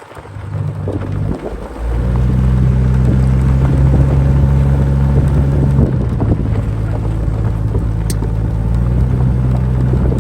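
Lifted Jeep's engine running at a steady pitch with road noise, louder from about two seconds in.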